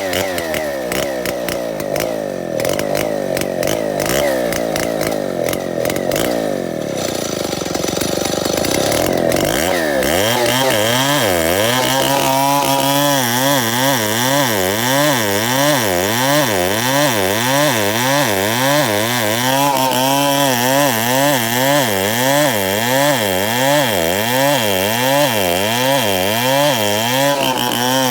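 Chainsaw running while cutting timber into boards. Its engine pitch sags and wavers for the first ten seconds or so, then it settles into a steady run with a regular up-and-down warble.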